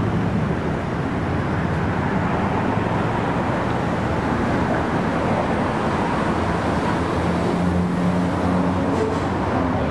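Steady urban street ambience: a constant, even rush of road traffic noise.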